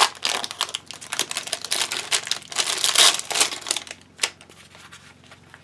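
Clear plastic wrapper crinkling and crackling as it is handled and pulled off a small spiral-bound sticker book. The crackles thin out after about three and a half seconds, leaving a few faint ticks.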